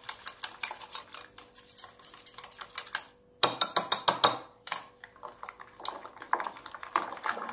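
Small wire whisk beating a yogurt and gram-flour batter in a glass bowl, a rapid clicking against the glass. After a short break just past three seconds there are a few louder knocks. A wooden churner is then spun between the palms in the batter, with lighter, more spaced clicking.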